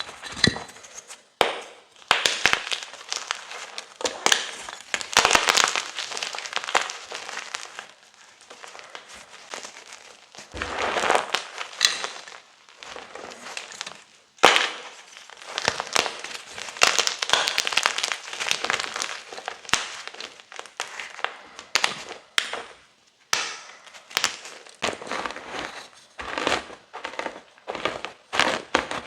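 Gym chalk chunks being crushed and crumbled, with dense crunching and crackling in bursts of a few seconds. One sharp snap about halfway through.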